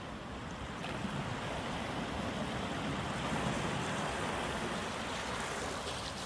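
Ocean waves washing ashore: a steady rush of surf that swells slightly about a second in.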